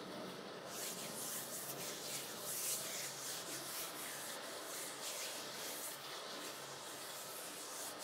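Bare palms rubbing together, a swishing hiss in quick repeated strokes that starts about a second in.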